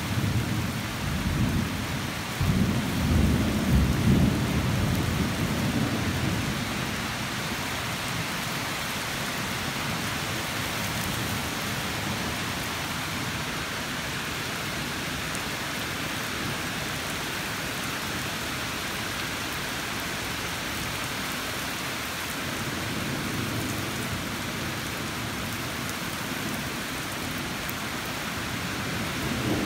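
Thunderstorm: rain falling steadily with a rolling rumble of thunder that swells about three to four seconds in and dies away by about seven seconds, leaving the even hiss of rain.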